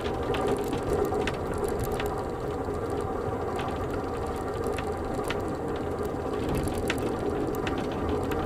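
Inside an Amtrak Superliner passenger car in motion: a steady rumble from the running gear with irregular clicks and rattles of the car body and fittings on a bumpy stretch of track.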